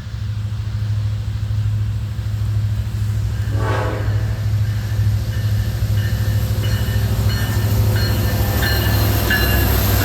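Diesel locomotives of an empty coal train running past with a steady low rumble, and one short train horn blast about three and a half seconds in. Faint high-pitched tones come and go in the second half.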